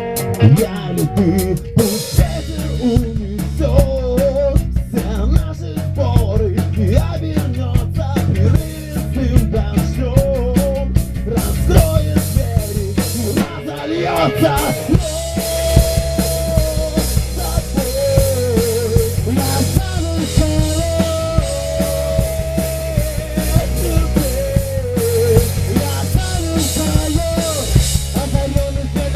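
Rock band playing an instrumental passage: drum kit with snare and bass drum keeping a steady beat under bass and a wavering melodic lead line, the sound filling out and brightening about halfway through.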